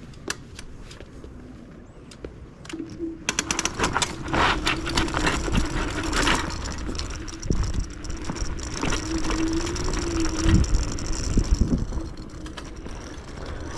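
Yume X11 electric scooter riding a dirt trail: its motor whines at a steady pitch under throttle while the frame and suspension rattle and clatter over the bumps. The first few seconds are clatter with no motor whine, and the whine cuts off about three quarters of the way through.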